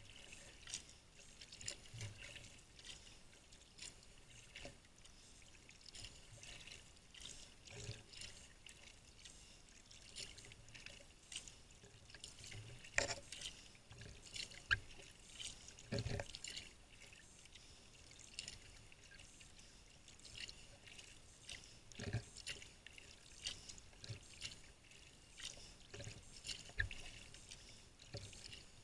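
Sea kayak paddle strokes: the blades dip into calm water over and over, with small splashes and drips about once a second. A few soft low thumps come in between, the strongest about halfway through.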